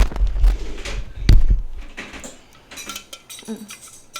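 A couple of dull thumps and knocks in the first second and a half, then light clinking of dishes and cutlery, as of a spoon against a takeout bowl at the end of a meal.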